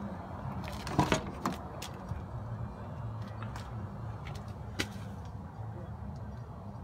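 A car door clunks loudly about a second in, followed by a few light clicks, over a steady low hum.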